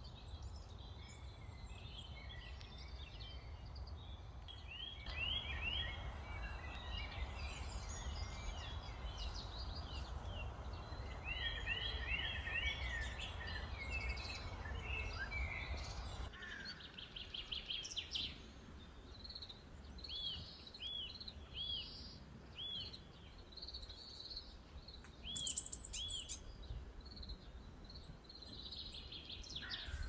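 Small wild birds chirping and calling: many short arching chirps, often repeated in quick runs, over steady outdoor background noise that is louder for a stretch in the first half.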